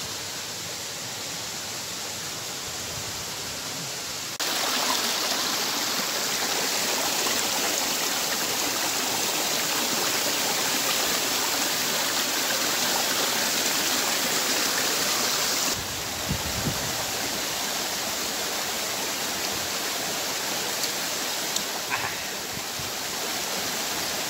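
Steady rushing of a small waterfall and stream, louder from about four seconds in until about sixteen seconds, with a few faint clicks near the end.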